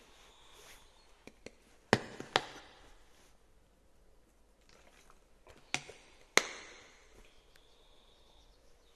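Several sharp clicks or knocks, each with a short ringing tail. There are two faint ones a little over a second in, then a loud pair about two seconds in and another loud pair about six seconds in.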